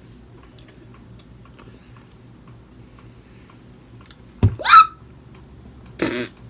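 Quiet chewing of sushi close to the microphone, with faint mouth clicks. About four and a half seconds in comes a sudden loud knock followed at once by a brief high squeak, and a short breathy burst follows a second and a half later.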